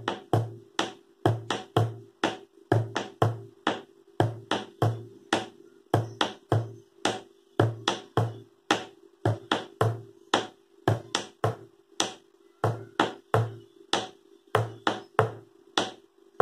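Homemade drum made from a paint bucket, struck with two twigs in a slow, steady folk rhythm of about three to four strokes a second. Low thuds on the centre of the lid, the bass-drum stroke, alternate with sharper, thinner clicks on the rim.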